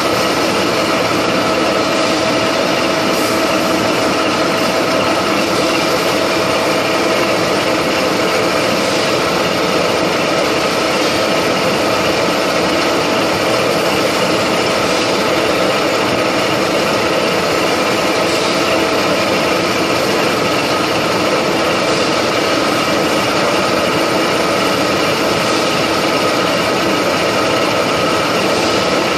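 Milling machine running steadily, its spiral end mill cutting the flats of a hexagon on a metal fitting, with a steady whine over the cutting noise.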